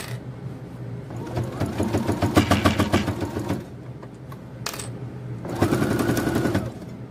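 Brother computerized sewing machine stitching in two short runs, the first about two seconds long and the second about a second, each with a rapid even needle rhythm.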